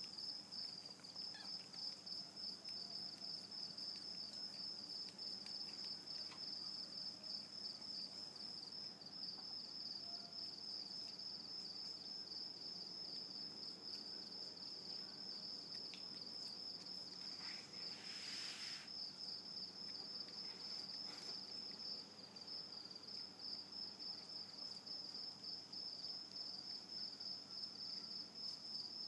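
Crickets chirping in a faint, steady high trill, with one short hiss about two-thirds of the way through.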